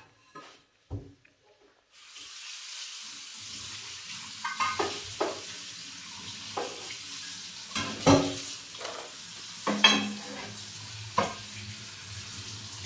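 Kitchen tap turned on about two seconds in, water running and splashing onto a nonstick pan held over a steel sink, rinsing off the cleaning paste from the burnt surface. Several knocks and clatters as the pan is handled in the sink.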